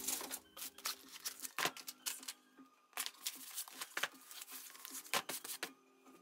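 Flat cardboard mailer boxes being handled and stacked on a desk: a run of irregular taps, knocks and brief scrapes and rustles. Soft background music fades under it in the first second or so.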